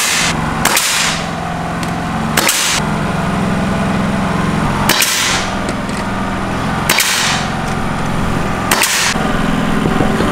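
Pneumatic nail gun firing about every two seconds, each sharp shot followed by a short hiss, over a steady motor hum.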